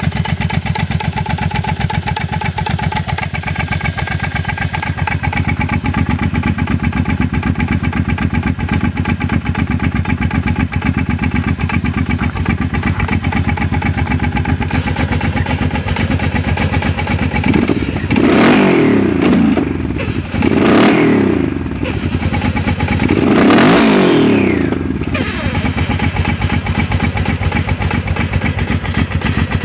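Motorcycle engine idling steadily, blipped three times in quick succession a little past the middle, each rev rising and falling back to idle.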